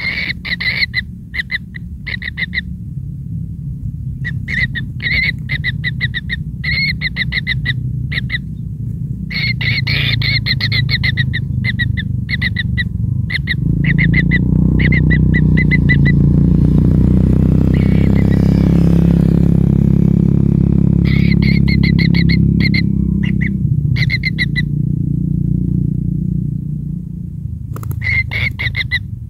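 Kingfisher chicks giving rasping begging calls: short trains of rapid pulses, repeated in bursts with pauses between them. A low rumble swells in the middle, with the calls dropping out under it, then the calls resume near the end.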